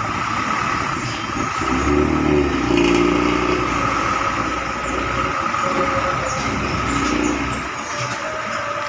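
A bus's diesel engine pulling through at low speed. Its low note swells about two seconds in, stays loud for several seconds, and drops away near the end, over a faint steady whine.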